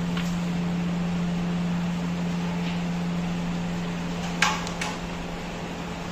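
Carrom striker flicked across the board, giving a sharp clack about two-thirds of the way in as it hits the carrom men, then a lighter click as pieces knock together. A steady low hum runs underneath.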